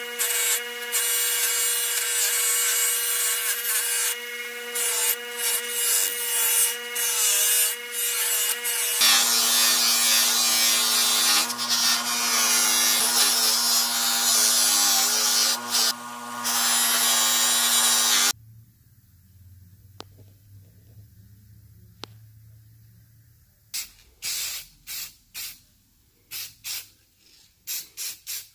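Bench grinder running with copper held against its spinning wheel: a steady motor hum under a rubbing, grinding noise, its pitch dropping about a third of the way in. After a quiet spell, a string of short hisses from an aerosol spray can near the end.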